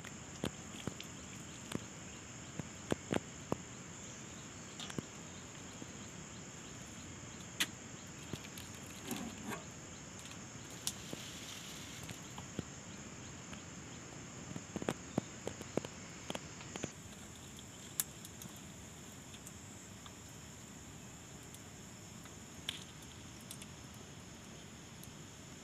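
Steady, high-pitched insect chirring, like crickets or cicadas, with scattered light clicks and taps over it.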